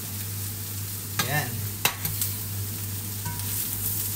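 Mixed vegetables sizzling in hot oil in a nonstick pan as celery is scraped in from a plate with a spatula and stirred, over a steady low hum. About a second in, a short squealing scrape of the utensil, then a sharp clack just before two seconds.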